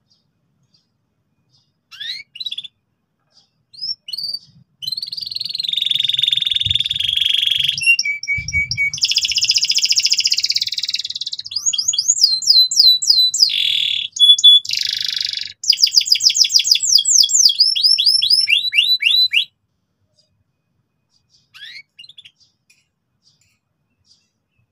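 Domestic canary singing: a few short chirps, then one long, loud song of buzzy rolls and fast trills lasting about fifteen seconds, then a few more chirps near the end.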